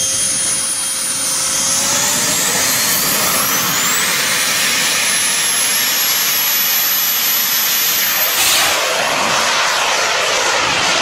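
Model jet's small turbine engine running with a high whine that climbs in pitch about three seconds in as it spools up to full power, over a steady loud rush of exhaust. About eight seconds in the sound changes abruptly to the jet's rush in flight.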